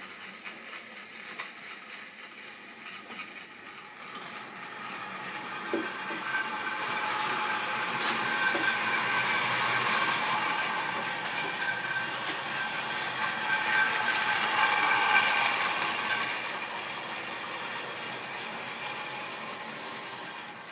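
Model railway train hauling tank wagons along the layout track: a steady electric motor whine with wheels rattling on the rails, growing louder from about four seconds in, loudest through the middle, then fading toward the end.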